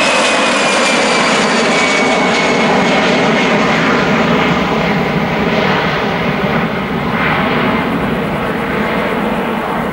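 Twin jet engines of an Airbus A320-family airliner at climb power, a loud steady rumble with a high whine that slides down in pitch during the first few seconds, slowly fading as the aircraft climbs away.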